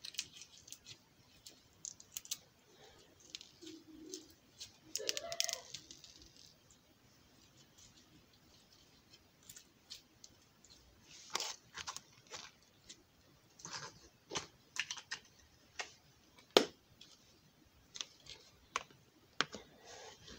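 Slime being squeezed and kneaded in the hands, giving irregular small sticky clicks and pops that come thicker in the second half.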